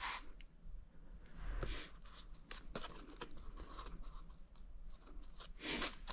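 Irregular light clicks, knocks and short scrapes of tools and metal parts being handled at a workbench, with a longer scrape or rustle in the middle and another near the end.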